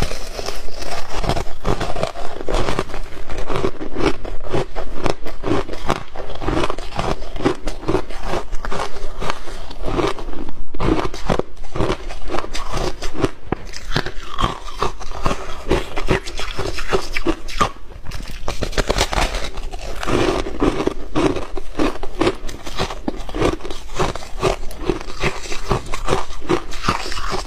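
Close-up crunching and chewing of a chunk of refrozen ice: a dense, continuous run of sharp cracks as the ice breaks and grinds between the teeth.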